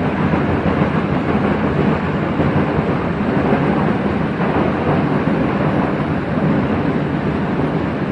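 Chicago CTA 'L' rapid-transit train running between stations, heard from inside the car: a steady, loud rumble of the car and its wheels on the track.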